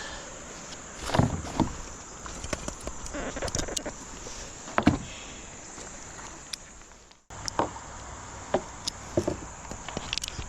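Steady rush of river water with scattered knocks and thumps against a kayak as it is handled and pulled in the shallows. The sound drops out for a moment a little past seven seconds, then the water and knocks resume.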